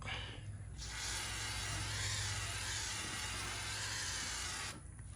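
Aerosol can of WD-40 spraying: a short soft spurt at the start, then one steady hiss of about four seconds that starts and cuts off sharply, lubricating the hub before the rotor goes on.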